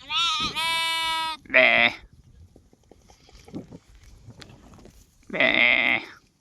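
Lamb bleating: a long high call at the start, a shorter wavering bleat right after it, and another wavering bleat near the end, with faint small clicks in between.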